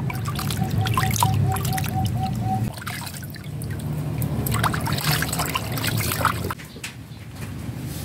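Water splashing, sloshing and trickling in a plastic basin as a zebra dove is bathed by hand, dunked and lifted so the water runs off it.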